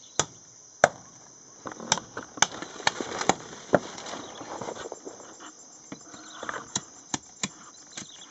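Machete blade chopping and shaving a bamboo strip: irregular sharp knocks, about a dozen, thicker in the first half. Insects drone steadily throughout.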